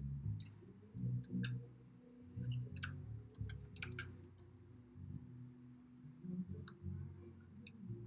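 Scattered soft clicks and small smacks from a person signing and silently mouthing words, over a faint low rumble.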